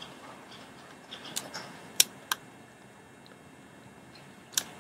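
A handful of sharp computer mouse clicks over faint room hiss: two loud ones about a third of a second apart, another near the end.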